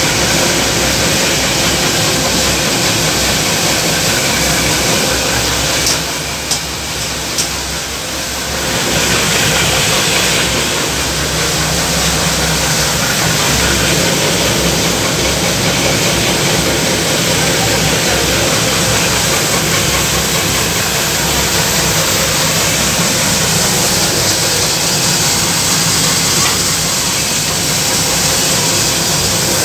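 DM 50 drum mix asphalt plant running: a loud, steady mechanical din of the burner, rotating dryer drum and conveyors. About six seconds in it drops briefly quieter for a couple of seconds, with two sharp clicks.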